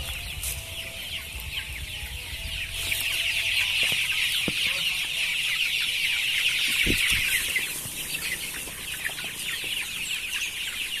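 A large flock of month-old KUB-2 kampung chickens peeping and clucking in a dense chorus that swells for several seconds mid-way and then eases.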